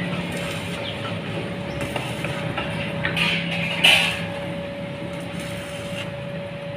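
An engine running steadily with a constant hum, and a brief loud noise about four seconds in.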